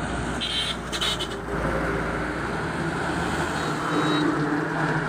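Heavy goods truck passing close by, its diesel engine and tyres growing louder to a peak about four seconds in. A few brief high-pitched squeals sound about a second in.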